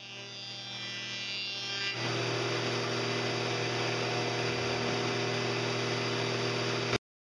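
Table-mounted wood router running, its motor building up over the first two seconds, then suddenly louder and harsher as the bit cuts the profile into a board. It stops abruptly near the end.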